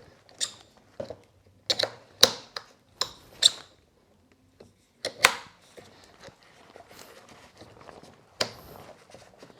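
A DeWalt D25133K SDS-plus rotary hammer's chuck being fitted with a bit: irregular sharp plastic-and-metal clicks and knocks as the bit is pushed and twisted into the chuck until it locks, the loudest about two and five seconds in.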